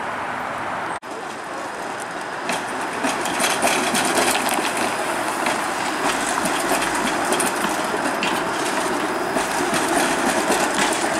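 Toronto Flexity Outlook low-floor streetcar passing close by on street track, getting louder about two seconds in as it approaches. Its wheels click repeatedly over the rail joints.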